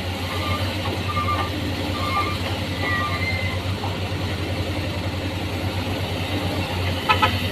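Excavator's diesel engine running steadily, with a short cluster of knocks about seven seconds in.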